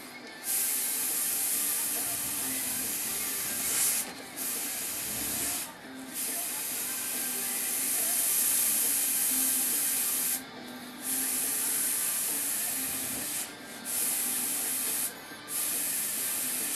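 Airbrush hissing as it sprays paint, in long bursts broken by about five brief pauses where the trigger is let off. A faint steady hum runs beneath.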